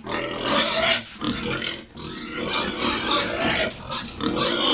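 Pigs squealing in repeated loud, overlapping bursts at feeding time, the sound of hungry pigs waiting for their feed.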